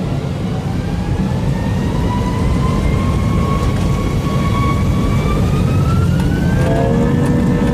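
Jet airliner engines spooling up for takeoff: a heavy rumble under a whine that rises slowly in pitch and levels off near the end, when a lower steady tone joins in.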